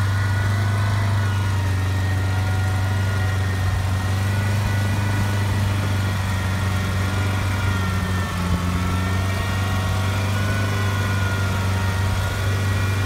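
Ford Maverick SUV's engine running at steady, unchanging revs while the vehicle is stuck in mud on a tow strap.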